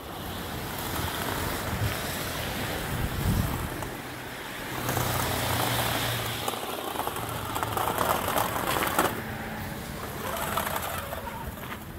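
RC4WD Beast 2 6x6 electric scale truck driving through snow, its motor and geared drivetrain running in uneven surges as the 3D-printed plow blade pushes and scrapes snow.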